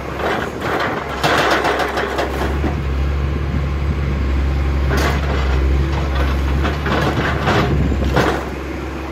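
Atlas Copco HB 4200 hydraulic breaker on a CAT 345B excavator hammering its chisel into limestone: heavy repeated blows over the excavator's running diesel engine. The hammering eases off about eight seconds in.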